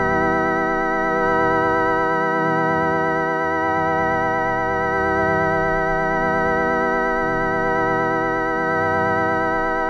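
Electronically processed audio from the 4ormulator v49 sound effect: a held, organ-like drone with many evenly spaced overtones that waver slightly in pitch, over an uneven, pulsing low end.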